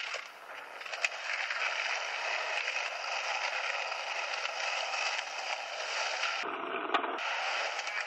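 Skateboard wheels rolling steadily over concrete, with a sharp clack about a second in and another near the end. It is heard thin and hissy through a camcorder's small playback speaker.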